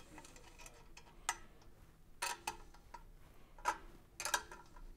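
Metal wrenches clinking against nuts and bolts as they are tightened on a steel handle frame: about half a dozen sharp metallic clicks, irregularly spaced, some in quick pairs.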